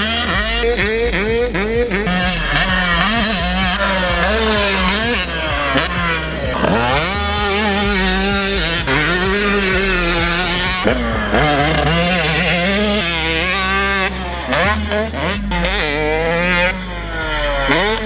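KTM 125 SX single-cylinder two-stroke motocross engine revving hard under a rider, its pitch rising and falling with every throttle blip and gear change. It starts with quick repeated rev bursts, about three a second, then moves to longer climbs and drops.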